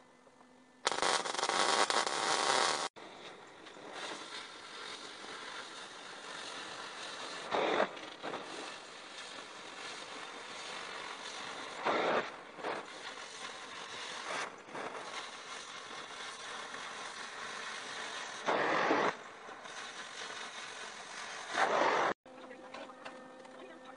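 MIG welder crackling during about two seconds of welding on steel. Then a cutting torch hisses steadily as it cuts a line through steel plate, with a few short louder surges.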